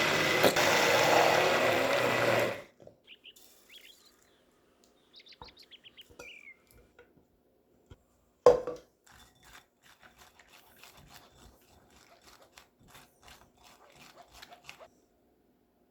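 Countertop blender running, likely puréeing raspberries with sugar, then cutting off about two and a half seconds in. Small clicks and squeaks follow, then a single sharp knock about eight seconds in and a run of light taps.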